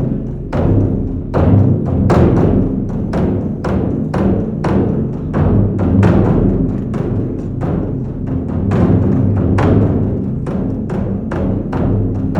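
Percussion music: drums struck in a steady beat, about two to three strokes a second, with a low ringing between strokes.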